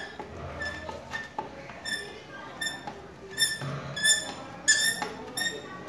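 A box spanner being turned on a tight 10 mm nut on a scooter's air filter housing, giving a series of short, high squeaks of metal on metal, one or two a second, louder in the second half.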